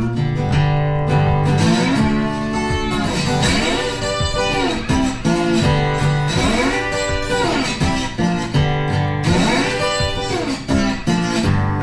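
Guitar-led background music with a steady beat; its lead line slides up and down in pitch every second or two.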